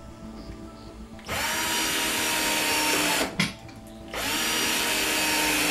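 Cordless drill driving a screw through a metal L clip into a cabinet toe kick board. It runs twice for about two seconds each, the motor whining up to speed at the start of each run, with a sharp click between the runs.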